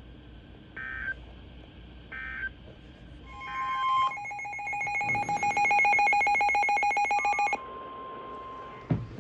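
Emergency Alert System signalling: short warbling digital data bursts about 1 and 2 seconds in, then a loud, harsh buzzing alert tone for about three and a half seconds that stops abruptly, followed by a quieter steady tone.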